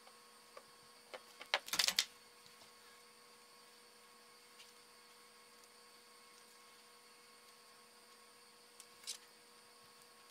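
Sharp clicks and knocks of an old plastic telephone handset being handled as its cover is worked back on: a quick cluster about two seconds in and a few single clicks later. A faint steady hum runs underneath.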